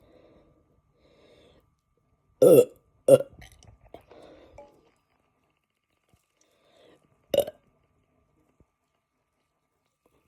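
Burps from a person bloated after drinking carbonated Sprite: a longer, pitched burp about two and a half seconds in, a short one right after it, and another short burp about seven seconds in. Faint softer sounds come between them.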